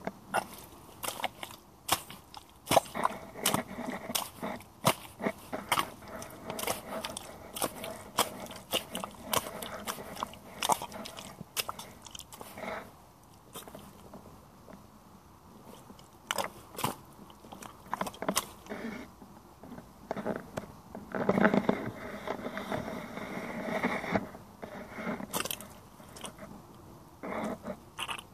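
Yellow Hunter rubber wellington boots squelching in thick wet mud as the wearer treads and steps about, with irregular wet crunching steps and a quieter spell about halfway through.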